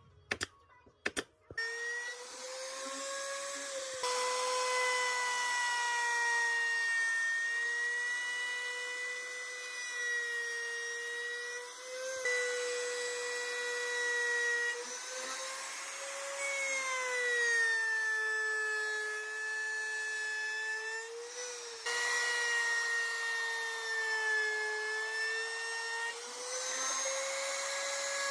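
A few sharp clicks in the first second and a half, then an electric plunge router's motor runs with a high whine, its pitch sagging and recovering again and again as it cuts into a hardwood block.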